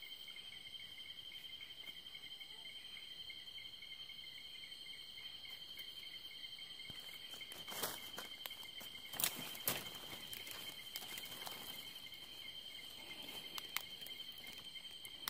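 Night insects trilling steadily, several high pulsing trills sounding together. A few sharp rustles and clicks break in about eight to ten seconds in, and once more near the end.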